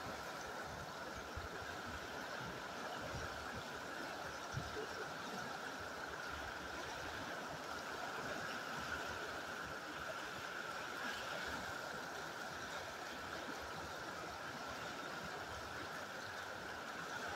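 Fast-flowing river rushing steadily over rocks in rapids.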